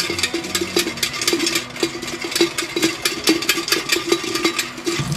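A sponge scrubbing the soot-stained bottom of a stainless steel pot under a running kitchen tap. Many quick, irregular scrub strokes sound over the steady rush of the water.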